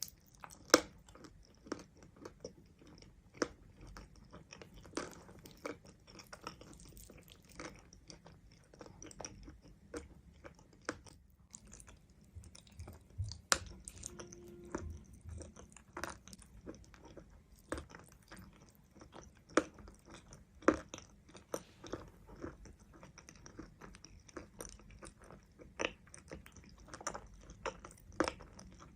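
Close-up chewing of mountain chalk: irregular sharp crunches as pieces are bitten and broken, with softer chewing between them.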